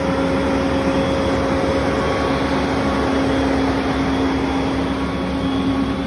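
Heavy diesel truck engines of concrete mixer trucks running steadily, a constant low hum.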